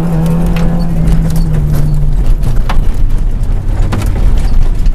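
Rally car's engine heard from inside the cabin, holding a steady high note, then dropping about two seconds in as the driver comes off the throttle and settling at a lower pitch. Loose gravel and stones tick and knock against the car's underside throughout.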